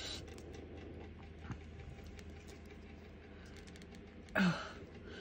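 Faint clicking and rustling of small plastic diamond-painting tools being handled: a drill pen and its grip rings, and a plastic drill tray. There is one sharper tick about a second and a half in, and a short vocal sound a little after four seconds.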